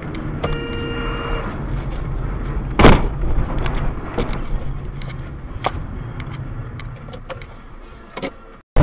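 Car cabin sound from a dashcam while driving: steady engine and road rumble, a tone lasting about a second near the start, and a sharp knock about three seconds in, the loudest sound, with several fainter clicks after it.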